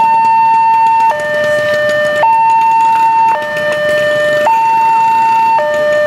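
Railway level-crossing warning alarm sounding with two tones, high then low, alternating about once a second: the signal that the barrier is down and a train is approaching.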